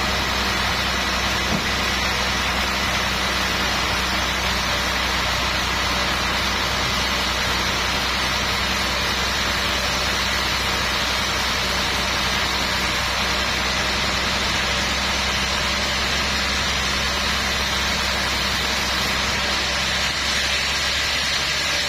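Sawmill machinery running steadily: an unchanging mechanical drone with constant tones.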